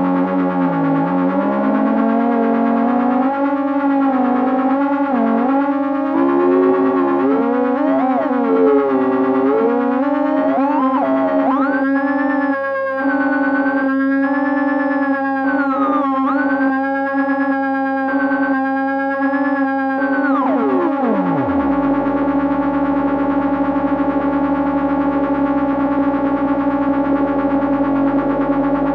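Electronic drone from a DIY Negistor Cracklebox noise synth run through a dual auto-filter: a steady buzzing tone with filter sweeps gliding up and down. A fast-pulsing high tone runs through the middle, then the pitch slides down to a lower drone about three quarters of the way in.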